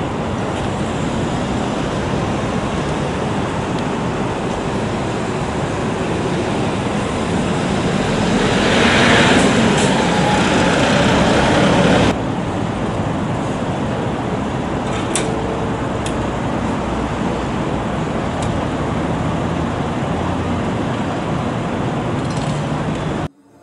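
Steady road traffic noise from a city street, growing louder for a few seconds as a vehicle goes by, then cutting off suddenly and going back to the steady hum.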